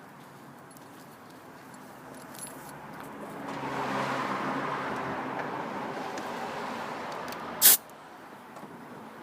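2000 Jeep Wrangler's 4.0-litre straight-six engine running. About three and a half seconds in it swells louder with a rushing sound for a few seconds, then eases off. Near the end comes a single sharp, loud click.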